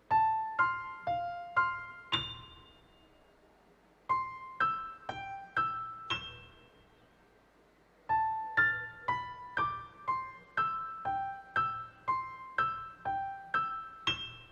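A gentle tune of single notes on a piano-like keyboard, each note ringing and fading. It comes in three phrases with short pauses between them; the third is the longest, about a dozen quick notes.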